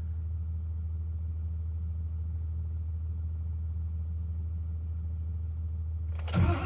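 A steady low hum while the glow plugs of an old Ford F-550's 7.3 Power Stroke diesel cycle on a cold start, its block heater not plugged in. About six seconds in, the starter kicks in and the engine begins to crank.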